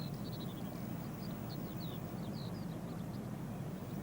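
Small birds chirping, with scattered short, high, mostly falling notes, over a steady low rumble.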